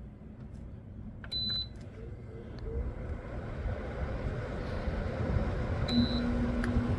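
Air conditioner starting up. A click and a short high beep come from its control panel about a second in, then the fan spins up with a rush of air that grows steadily louder. A second beep comes near the end, and a steady low hum sets in.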